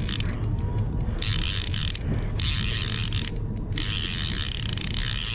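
Okuma Convector CV-30D line-counter trolling reel being cranked steadily, its gears giving a continuous ratcheting, as a hooked fish is reeled in.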